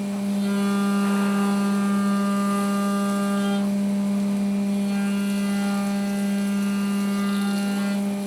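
CNC milling machine running with a steady, high motor whine. Its higher overtones cut in and out every few seconds.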